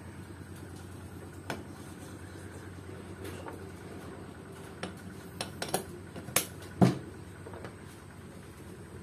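A few scattered metal clicks and knocks as the camshafts and the aluminium camshaft holder are handled on a Suzuki Satria FU cylinder head, over a steady low hum. The loudest knock comes about seven seconds in.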